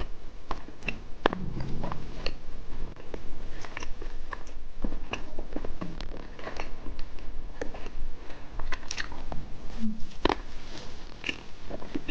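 Mouth biting and chewing a sweet candy snack, with irregular crisp clicks and crunches.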